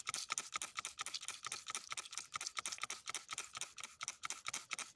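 Rapid, irregular clicking and crackling, about a dozen small clicks a second: a wet, gritty quartz crystal being rubbed and turned between the fingers close to the microphone.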